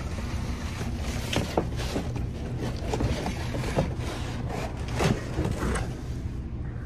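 Scrapes, rustling and scattered knocks over a steady low hum, as flattened cardboard boxes are carried outdoors.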